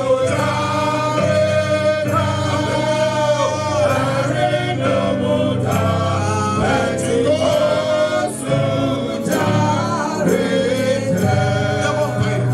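Gospel singing by a choir with instrumental accompaniment under it: voices in melodic phrases over steady held low notes.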